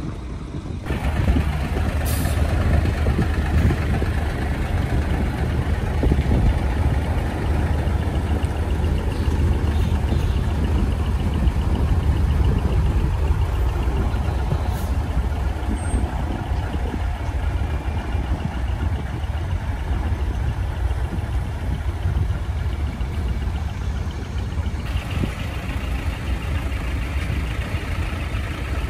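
Heavy diesel truck engines running at low speed as large decorated trucks move off and pass close by.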